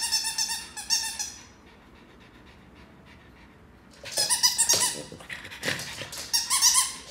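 Excited French bulldog making high whines and yips while jumping at a toy held above her. There is a run of calls at first, a quiet gap of about two and a half seconds, then more yips and whines from about four seconds in.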